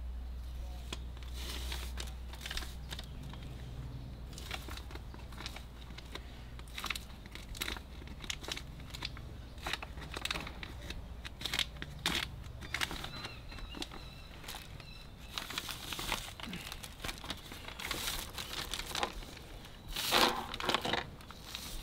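Sheet of quilted insulation batting being handled, folded and crinkled by hand, an irregular rustling and crinkling with a louder burst near the end.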